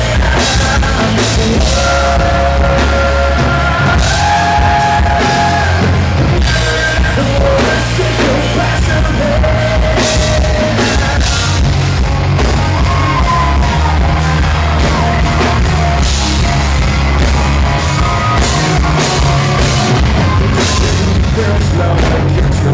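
Live rock band playing loud: drums, bass and electric guitars, with a man singing and holding long notes over them.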